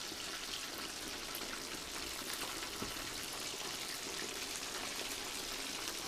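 Pieces of spice-coated chicken deep-frying in hot oil: a steady sizzle with many small crackles and pops.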